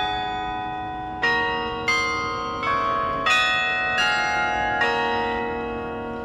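Carillon bells playing a slow melody: six struck notes and chords about two-thirds of a second apart, each ringing on into the next. The last stroke, about five seconds in, is left to ring out.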